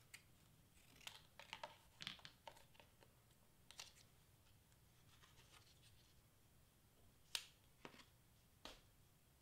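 Faint handling of green cardstock and small craft scissors: scattered soft clicks and paper rustles, the sharpest click about seven seconds in.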